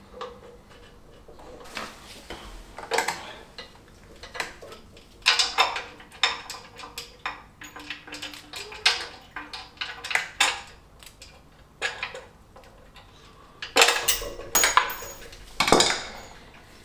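Metal hand tools clicking and clinking against engine bolts as they are loosened with a spanner: irregular sharp metallic clicks in clusters, the loudest near the end.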